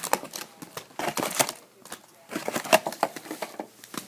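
Foil trading-card packs and their cardboard box being handled: crinkling wrappers and light clicks and taps, in two busy clusters about one and two and a half seconds in.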